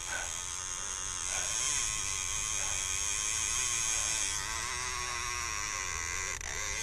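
Shimano Talica 12 II lever-drag reel's drag giving a steady buzzing hiss with a wavering hum, as a hooked common skate pulls line off against it.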